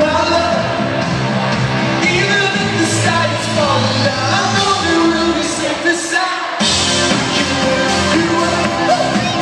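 Live pop band playing loud amplified music with a lead vocal, heard from the audience in a large arena. The bass and drums drop out for a moment about six seconds in, then come back in.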